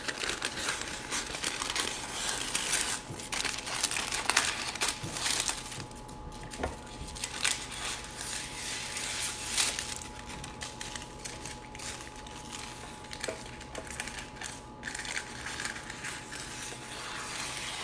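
Parchment paper crinkling and rustling as it is handled and trimmed with kitchen scissors.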